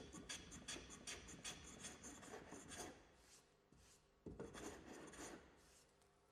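Faint, quick rubbing strokes of a hand tool across timber, about two to three a second, then a second short run about four seconds in, as the waste of a dovetailed repair piece is trimmed flush.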